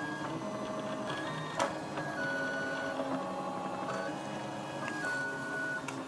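3D printer running, its stepper motors whining at steady pitches that jump to a new note every half second to a second as the print head changes moves. There is a sharp click about a second and a half in.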